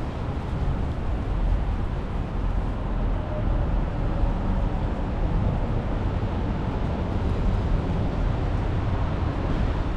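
Steady low rumble of city street traffic, swelling slightly in the middle.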